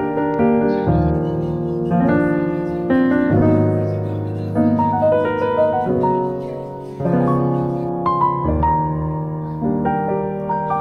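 Background piano music, with new notes and chords struck about once a second, each fading away before the next.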